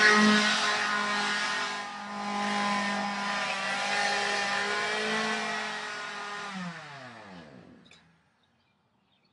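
Two-stroke chainsaw engine running at high speed. About six and a half seconds in, the pitch falls away as the engine is shut off, and it dies out by about eight seconds.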